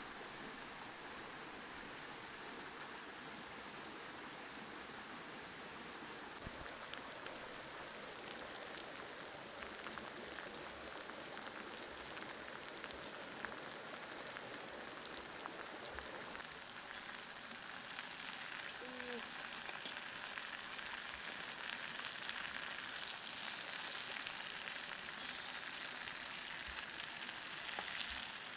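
Water spinach sizzling and frying on a hot stone slab, a steady hiss with fine crackling that grows louder in the second half.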